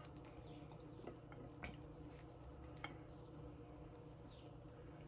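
Faint, irregular wet mouth clicks and smacks of someone eating close to the microphone, a handful in the first three seconds, over a steady low room hum.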